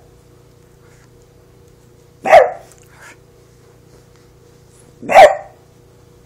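Small dog barking: two single sharp barks about three seconds apart, each dropping slightly in pitch, over a faint steady low hum.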